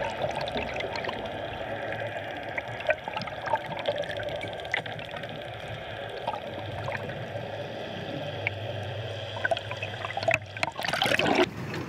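Water splashing and trickling around a fishing boat, with many small splashes and a louder rush of noise near the end.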